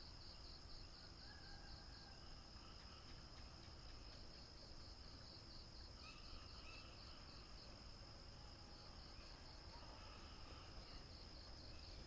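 Faint night crickets: a steady high trill with a regular pulse, with a few other faint calls about halfway and near the end.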